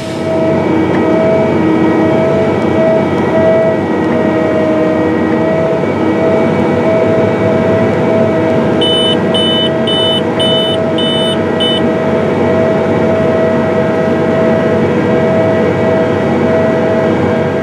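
Case IH Steiger 420 tractor running under load while pulling an air cart drill through corn stalks: a steady engine drone with a steady whine over it. About nine seconds in, six short electronic beeps sound in quick succession, about two a second.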